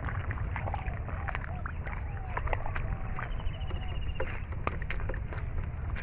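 Bare feet and hands squelching and splashing through shallow mud water in a drying pond, a steady stream of small wet sucks, slaps and clicks as someone gropes in the mud for catfish.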